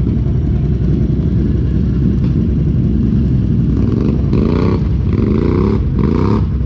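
Off-road vehicle engine running, its pitch rising and falling in the second half as it revs over the terrain.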